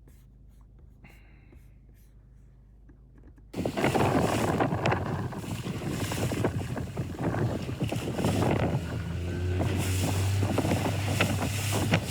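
Near silence for about three and a half seconds, then a sudden cut to loud wind buffeting the microphone and water rushing, out on the water under sail in strong wind and waves. A low steady hum joins about ten seconds in.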